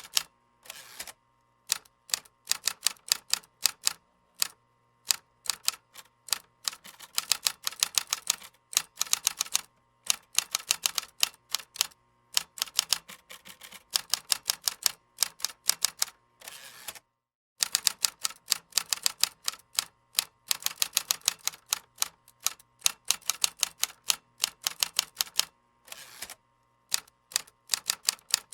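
Keys being typed on a keyboard: fast runs of keystroke clicks broken by short pauses, with a brief total gap about 17 seconds in.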